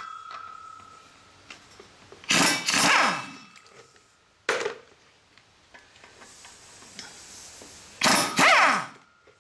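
Power driver spinning out the large sheet-metal screws that hold the engine's cooling blower housing. It runs in two bursts of about a second each, its pitch rising and falling, with a short sharp clank between. A struck metal part rings faintly at the start.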